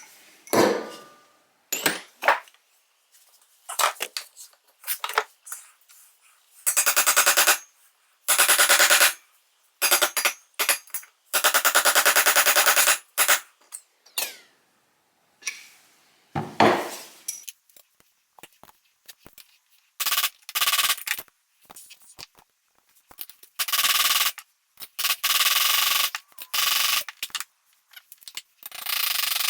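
A power tool run in short bursts of about one to three seconds, each with a fast rattling pulse, with knocks and handling clunks between the bursts.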